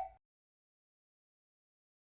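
Complete silence: a held, horn-like tone cuts off at the very start, and nothing follows.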